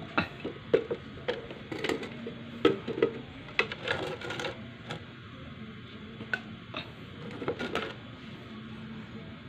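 Metal paint cans knocking and clinking as they are handled and set down, a quick run of sharp taps in the first four seconds or so and a few more near the end.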